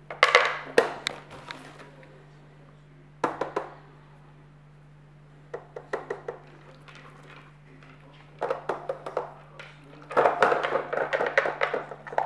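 Hard plastic lids and drawers of a Poker Box dog puzzle toy clicking and clattering as they are lifted, slid and dropped back, in short bursts of knocks. The busiest clatter comes near the end as the dog noses into a compartment and knocks a lid aside.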